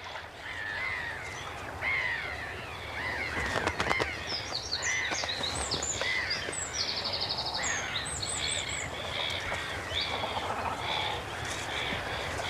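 Many birds calling over one another at a breeding colony: repeated short rising-and-falling calls, higher chirps, and a fast trill about midway.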